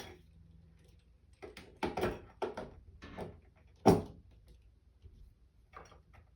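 A string of light knocks and clicks of hard objects being handled, about eight in all, with the loudest a sharp knock about four seconds in.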